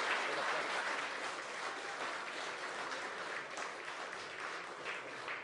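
Crowd applauding, the clapping gradually dying away.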